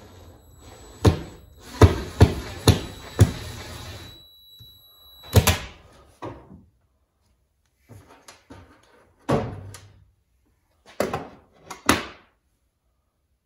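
Sharp knocks and taps in uneven groups while a thermostat's wall plate is fixed to the wall. Five come close together near the start, and a faint high steady whine runs under them for about three seconds and stops at a loud knock.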